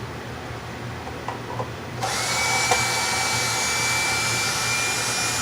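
An electric drill starts up about two seconds in and runs steadily, a high whine over a hiss.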